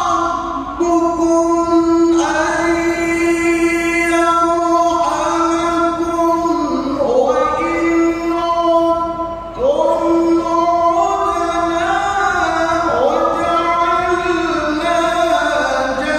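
A male qari chanting Quran recitation in the melodic tilawah style. His voice is high and holds long notes with ornamented glides and turns, with short breaths about a second in and near ten seconds.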